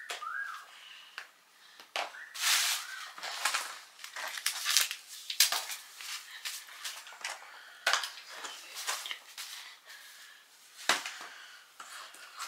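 Small plastic toy pieces and cardboard packaging being handled: irregular clicks, clatters and rustles.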